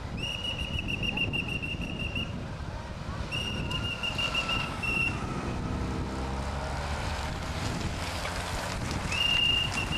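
Long, slightly fluttering blasts on a race marshal's pea whistle: three in the first half and another near the end. In between, a motorcycle passes close by with its engine note falling, over steady wind noise on the microphone.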